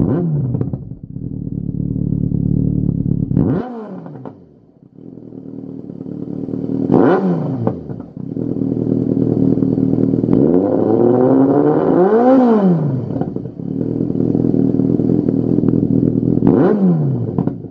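Yamaha XJR1300's air-cooled inline-four engine running through a Lextek YP4 aftermarket silencer, idling with throttle blips. A rev dies away as it opens, three quick blips rise and fall sharply, and one slower, longer rev climbs and drops back just past the middle.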